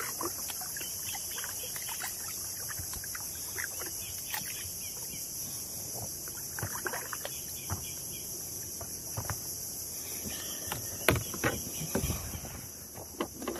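Kayak paddle dipping and splashing in calm water, with scattered drips and a few louder knocks near the end, over a steady high-pitched drone of insects.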